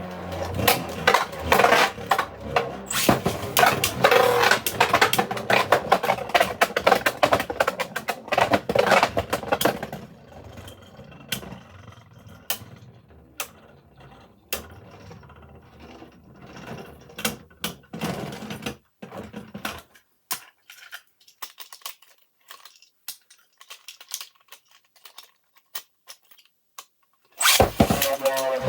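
Plastic 3D-printed Beyblade spinning tops clashing and rattling against each other in a stadium. The hits come in a dense stream at first, thin to scattered ticks about halfway through, and stop almost entirely as the tops spin down. Dense clicking starts up again just before the end.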